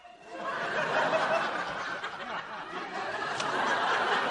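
Studio audience laughing, swelling up about half a second in and holding strong.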